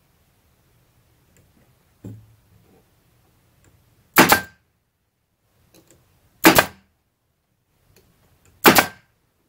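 A pneumatic staple gun firing three times, about two seconds apart, into cedar siding boards. Each shot is a sharp bang, with a softer knock about two seconds in before the first.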